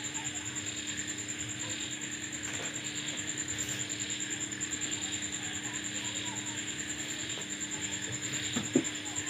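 Crickets trilling steadily with a fast, even pulse, while a drive belt is worked onto the engine pulleys by hand, with a few light knocks near the end.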